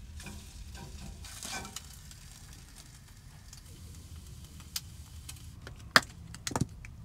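Faint sizzle from a hot frying pan on a gas stove, with a few sharp clicks and knocks of kitchenware near the end.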